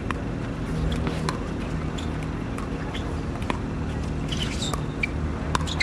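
Pickleball paddles hitting the plastic ball back and forth in a soft dinking exchange at the net: sharp hollow pocks at an uneven pace of roughly one a second, a few coming close together near the end. Under them runs a steady low background rumble.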